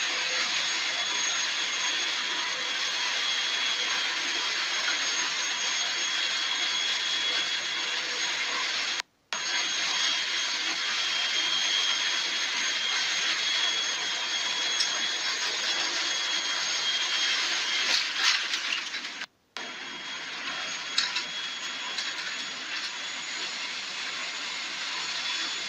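Airliner cabin noise from a seat beside the wing engine: a steady jet-engine rush with a thin high whine over it. The sound cuts out briefly twice and is a little quieter after the second break.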